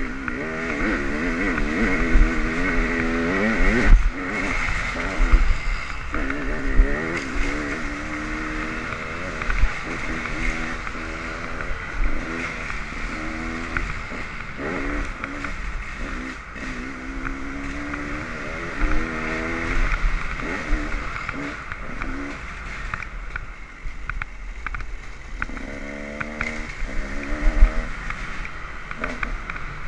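Dirt bike engine revving up and dropping back again and again while riding a trail, its pitch climbing with each burst of throttle, with occasional knocks from the ride.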